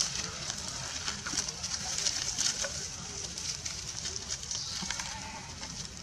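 Young macaque monkeys crying out as they scuffle and grapple on the ground.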